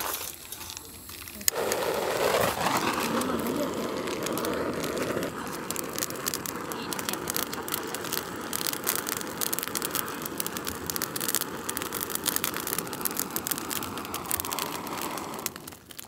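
Steady rushing hiss of a handheld fire-lighting tool aimed into a campfire pit to get the firewood burning. It starts suddenly with a click about a second and a half in, holds even, and cuts off near the end.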